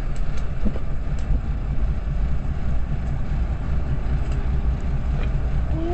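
Sportfishing boat's engine running steadily, a low even drone, with a few faint clicks on the deck.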